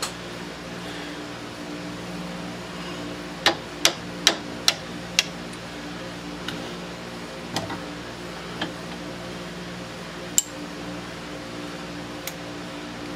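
Sharp metallic clicks and taps as a stubby hex key is fitted to and worked on the socket-head bolts of a steel lathe chuck while the chuck is turned by hand. There is a quick run of five clicks a few seconds in, then single ones spread out after it. A steady low hum runs underneath.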